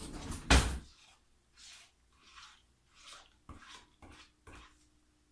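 Cutlery clattering with a sharp knock about half a second in, as a spoon comes out of a kitchen drawer, then a metal spoon scraping and scooping thick yogurt in a plastic tub, with a few light taps near the end.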